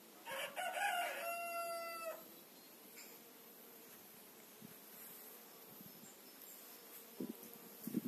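A rooster crows once, a single call of about two seconds that ends on a held note.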